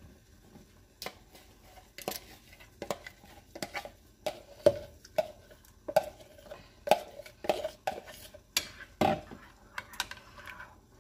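Wire whisk clinking against the sides of a glass bowl, about one or two knocks a second, each with a short ring, as gelatin is stirred into thickening lemon custard over a double boiler.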